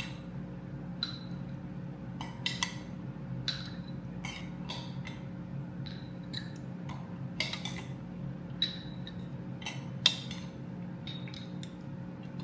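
A metal tablespoon clinking against a glass again and again, a dozen or so small irregular clinks with a short ring, as liquid is spooned out. A steady low hum runs underneath.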